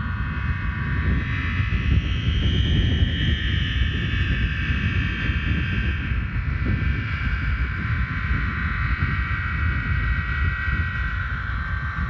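Homemade aeolian harp of fishing-line strings on a plastic water pipe, sounding in the wind: a cluster of high, sustained, drone-like tones that swell and shift. Wind rumbles on the microphone underneath.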